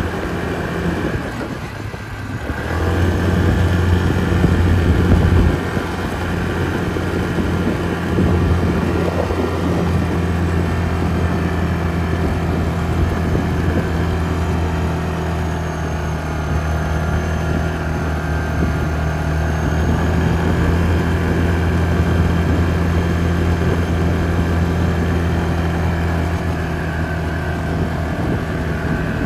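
Yamaha Grizzly 450 ATV's single-cylinder four-stroke engine running steadily under way, with a brief dip in the engine note about two seconds in.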